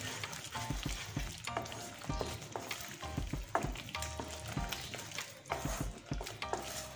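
Wooden spatula stirring and scraping a thick onion-tomato spice masala in a nonstick kadhai, with short, irregular scrapes and taps. The paste sizzles as it fries in oil.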